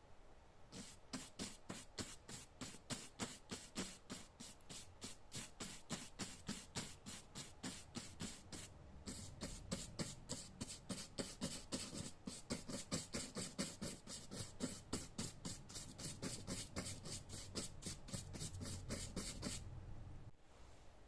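Rapid, regular rubbing or scraping strokes, about five a second. They start about a second in and stop shortly before the end.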